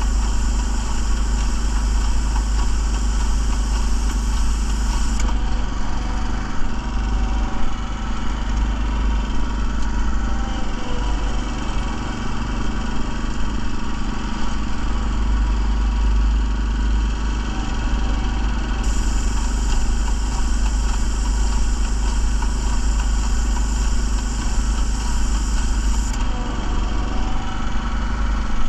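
Small engine of a parking-lot line-striping machine running steadily. A high hiss of paint spraying from the gun cuts out about five seconds in and comes back for several seconds near the end, as a stripe is laid.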